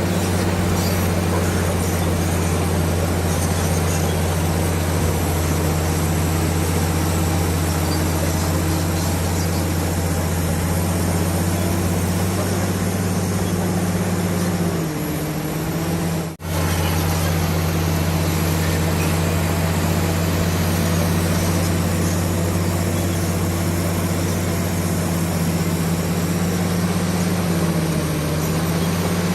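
Komatsu D65PX bulldozer's diesel engine running steadily at working revs, its pitch dipping briefly about fifteen seconds in and again near the end. The sound breaks off for an instant about sixteen seconds in.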